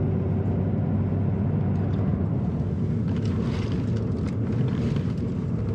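Inside a moving vehicle's cabin: steady low engine and road rumble, with a few light knocks in the middle.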